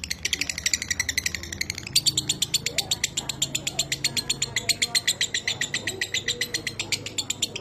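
Lovebird giving its long 'ngekek' chatter: a fast, unbroken run of sharp, dry chirps, about a dozen a second. A faint low hum runs underneath.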